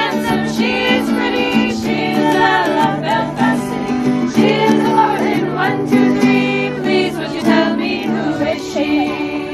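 Music: a song with voices singing over a guitar accompaniment.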